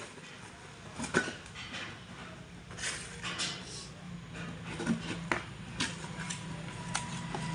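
Scattered metallic clinks and knocks from tractor engine parts being handled, over a low steady hum.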